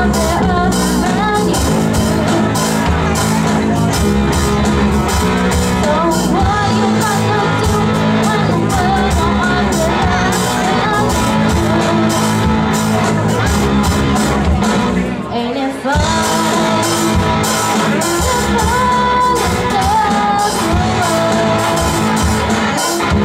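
Live rock band playing loudly with a lead singer: electric guitar, bass guitar and drum kit. The band briefly drops out about fifteen seconds in, then comes straight back in.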